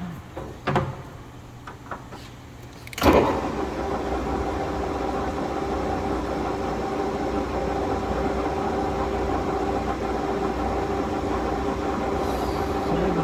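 A few clicks as the headstock speed levers of a Mori Seiki gear-head engine lathe are shifted. About three seconds in, the spindle is switched on with a sudden surge, and the geared headstock then runs steadily with a constant gear whine, at the speed next called out as 1010 RPM. The headstock sounds healthy.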